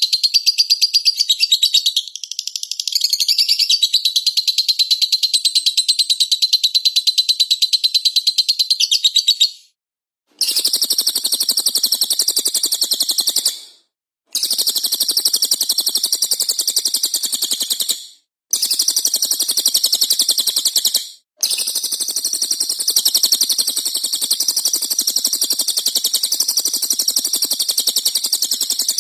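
Dense, rapid, high-pitched chirping and chattering of several small cage songbirds layered in a bird-training mix. From about ten seconds in a lower, rougher layer joins it, and the sound cuts out abruptly for short moments four times, like spliced loops.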